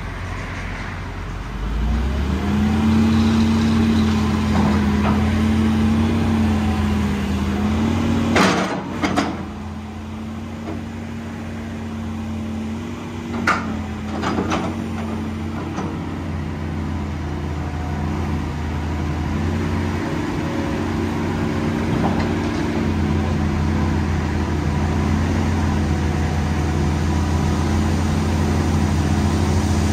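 Case CX225SR tracked excavator's diesel engine running steadily, its revs picking up about two seconds in as the boom and bucket are worked. Sharp knocks twice about a third of the way in and twice more about halfway.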